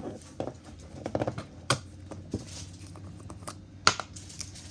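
Slime being pressed back into its plastic container: irregular small clicks and pops, with a few louder taps.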